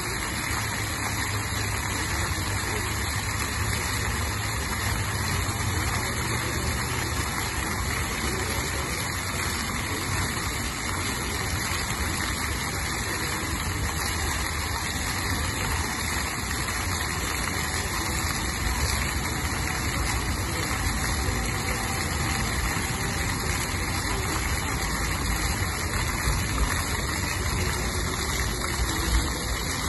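Ground-level jet fountain: many small water jets spraying up from the paving and splashing back onto the wet stone, a steady rushing splash with a low rumble underneath.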